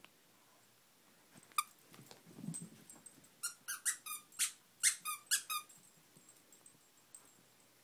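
Squeaky plush duck toy being bitten by a Miniature Pinscher: one squeak about a second and a half in, then a quick run of about nine squeaks.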